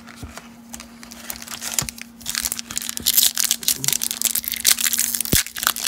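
A baseball card pack's wrapper crinkling as it is handled and torn open. It starts with a few soft clicks and rustles, then turns into dense crackling that grows louder about two seconds in.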